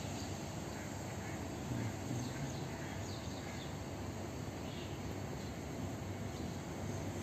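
Outdoor ambience: a steady low rumble and hiss with a few faint, scattered bird chirps.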